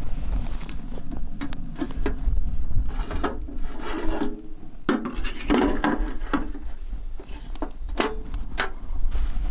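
Small steel camp wood stove being worked by hand: the front door clanks open and a gloved hand scrapes and knocks around inside the firebox, with a run of scraping and rattling in the middle and scattered knocks, over a steady low rumble.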